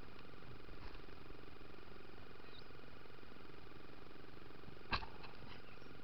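Starlings pecking at birdseed right at the camera: a few faint taps about a second in, then one sharp tap near five seconds followed by a few lighter ones, over a steady hiss.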